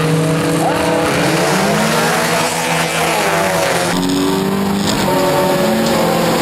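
Rallycross racing car engine accelerating hard, its pitch climbing and dropping with each gear change. About four seconds in, the sound changes to that of the car heard from inside its cabin.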